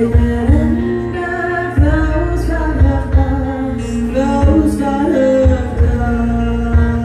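Live band music: a singer holds a gliding melody over sustained chords, with low drum thumps keeping the beat.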